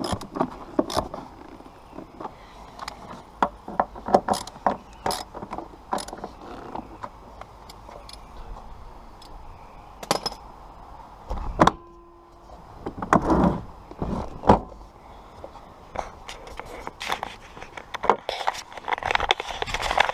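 Irregular clicks, clinks and knocks of hand work on a car's seat belt and interior fittings, metal hardware and plastic trim being handled. A few heavier thumps come about halfway through, and a rustling scrape near the end.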